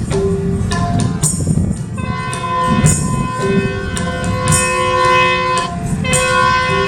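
Background music: an instrumental passage of a Rajasthani folk song, with a melody instrument holding long notes over steady hand percussion.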